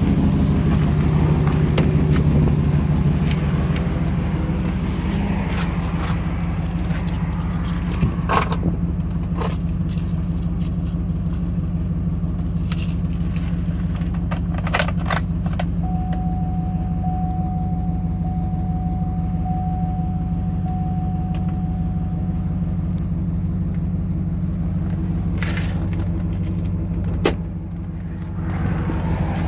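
2008 GMC Sierra Denali's 6.2L L92 V8 idling steadily through an exhaust that leaks just ahead of the secondary catalytic converter, with the resonator deleted. A few light clicks and rattles sound over it, and a sharp knock near the end is followed by a slightly quieter engine sound.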